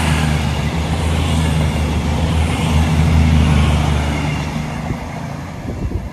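CrossCountry Voyager diesel multiple unit passing close by, its underfloor Cummins diesel engines running steadily under wheel and air noise. The sound peaks about three seconds in and fades as the train moves away.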